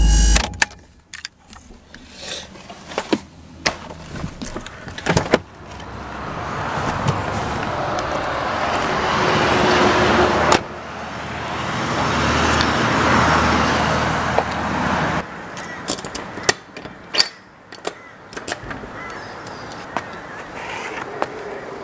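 A car engine is switched off with the ignition key; its low running hum stops about half a second in. Door clicks and knocks follow. Two long swells of hiss then rise and fade, from vehicles passing on a rain-wet road. Near the end come more clicks and knocks as a shop's glass door is unlocked and opened.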